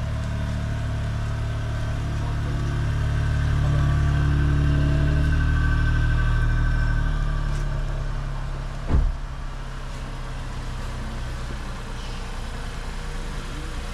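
Toyota Corolla sedan's petrol engine idling steadily on a cold start after sitting unstarted for about a week. It is louder for a few seconds in the first half, then settles. A single sharp knock sounds about two-thirds of the way in.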